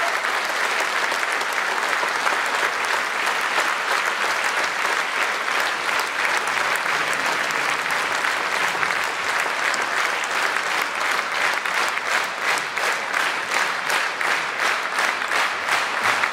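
A large audience applauding, the clapping turning into rhythmic clapping in time in the second half.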